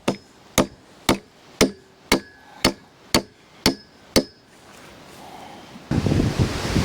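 Hammer blows, nine in a row at about two a second, each with a short ring. Wind noise picks up near the end.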